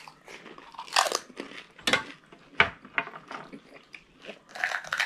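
Crisp homemade semolina puri shells crunching and cracking as pani puri are bitten and chewed, a run of sharp crunches, loudest between about one and three seconds in.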